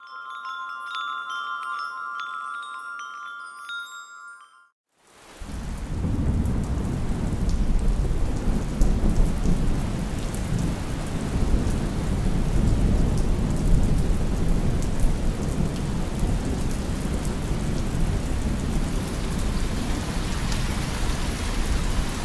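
Ringing chime tones for about five seconds, then a brief gap and a heavy rainstorm: dense, steady rain with a deep low rumble of thunder.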